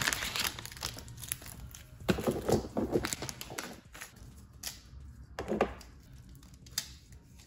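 Plastic packaging bag crinkling and rustling as it is torn open and emptied. Light knocks come as small items, an LED strip reel and its remote and cable, are set down on the floor tiles.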